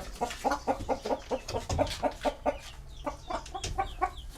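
Hijazi chickens clucking: a run of short, quick clucks, several a second.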